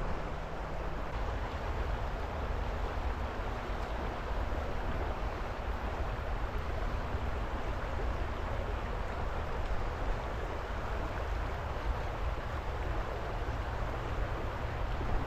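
Boise River current rushing steadily, an even wash of moving water.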